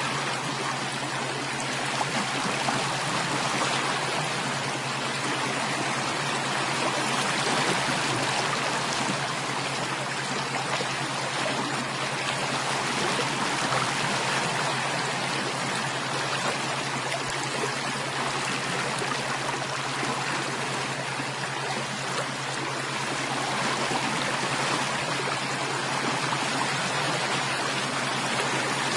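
Stream water flowing and trickling steadily, an unbroken babbling rush, with a steady low hum beneath it.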